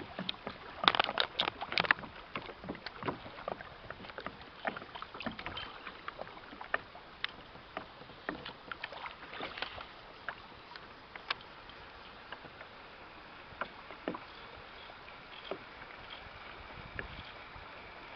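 Water splashing and lapping against a kayak's hull as it moves along a river: a steady wash with an irregular run of small splashes and knocks, busiest about a second in.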